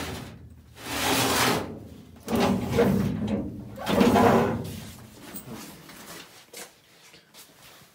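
Metal cabinet drawers slid open and shut in quick succession: three loud strokes in the first five seconds, then only faint knocks.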